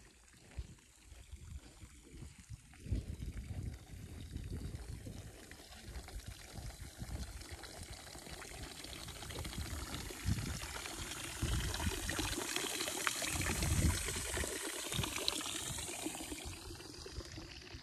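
Water pouring steadily from a fountain spout into a stone trough, growing louder toward the middle and fading near the end, with irregular low thumps underneath.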